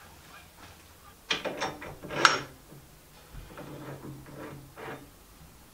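Metal clicking and clunking from the ball-handle crank on a milling machine's table powerfeed as it is worked by hand. The loudest clunk comes about two seconds in, followed by fainter rattles.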